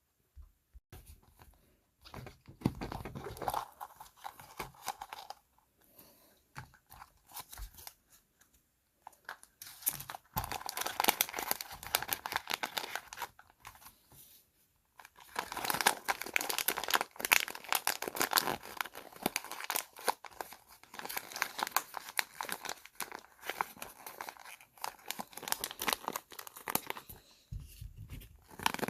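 Plastic packaging being torn open and crinkled by hand, in spells of dense crackling with short pauses between them.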